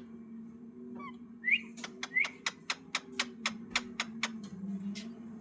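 A pet parrot giving a few short squeaky chirps, then a quick even run of about a dozen sharp clicks, some five a second, over a steady low hum.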